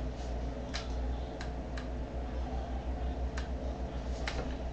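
A handful of faint, scattered clicks and taps, most likely from a plastic airsoft pistol and paper being handled while a shot is set up, over a steady low hum.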